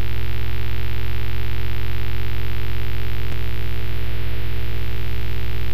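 A loud, steady electronic buzzing drone, one unchanging pitch with many overtones and a deep hum at the bottom, with a faint click about three seconds in.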